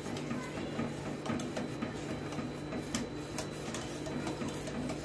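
Wire whisk clinking and scraping against the sides of a steel saucepan in quick, uneven strokes as it stirs milk, over a low steady hum.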